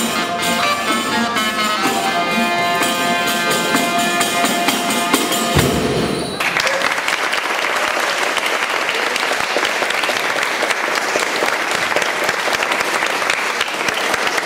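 A folk band's tune on a wind instrument and fiddle ends about six seconds in. An audience then applauds for the rest of the time.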